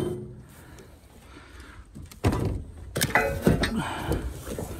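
Sharp knocks and thunks of steel sawmill parts being handled in their cardboard-and-wood shipping crate, with one at the very start and two more about two and three seconds in.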